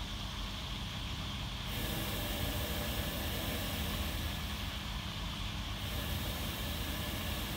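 Steady background noise of a commercial kitchen: a low rumble with a hiss over it, the hiss stepping up about two seconds in and dipping briefly around five seconds.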